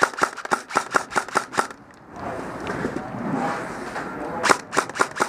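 Airsoft guns firing a rapid string of sharp shots, about six a second, for the first second and a half, then a couple of seconds of rustling noise, then a few more quick shots near the end.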